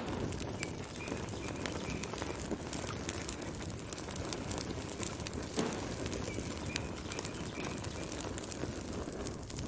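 Wood fire burning, with a steady low roar of flames and constant irregular crackles and pops.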